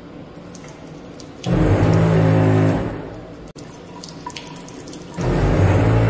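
A sick owl's breathing, loud, raspy and gurgling, heard as two long breaths about four seconds apart.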